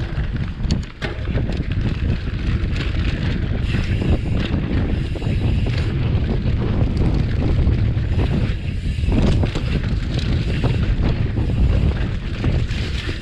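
Wind rushing over the camera microphone with the continuous rumble of a mountain bike rolling down a dirt and leaf-strewn trail, the bike rattling and clicking over bumps.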